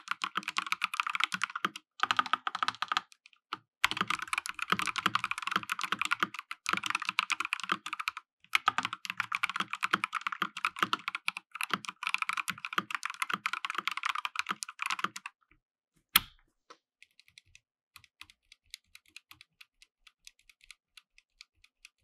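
Fast typing sound test on an Akko Sailor Moon Crystal 5108B Plus full-size mechanical keyboard with Akko Crystal switches and foam dampening: a dense run of key clicks with a few brief pauses. About 16 s in there is one sharper, louder clack, then only faint, scattered key clicks.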